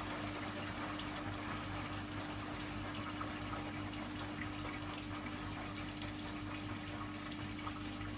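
Hoover washing machine running its refresh cycle: a steady rush of water with a constant low hum underneath.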